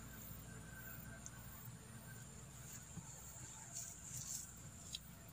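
Faint rustling of grass and soft handling noises from hands working a line at an eel burrow, with a few light clicks and a steady faint high-pitched whine behind.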